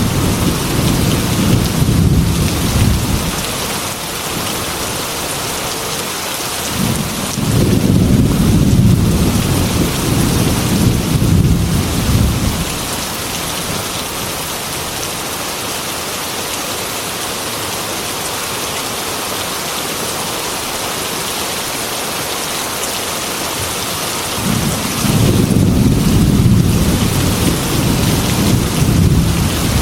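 Heavy rain falling steadily on window glass, with rolls of thunder rumbling low under the hiss. The thunder comes three times: at the start, for several seconds about a third of the way in, and again near the end.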